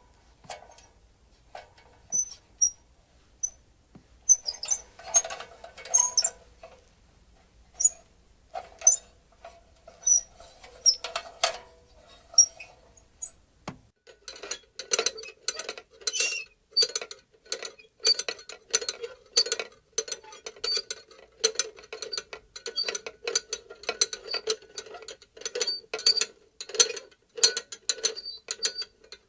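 Small metal lantern squeaking and clinking as it is moved and shaken. At first the squeaks come singly and irregularly. From about halfway they become a steady, regular run of short squeaks.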